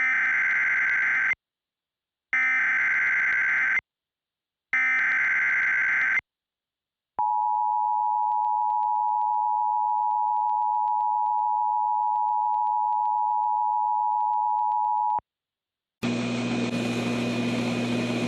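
Emergency Alert System SAME header: three bursts of warbling digital data tones, each about a second and a half long, followed by the steady alert attention tone held for about eight seconds and cut off. Near the end a steady hiss with a low hum comes in.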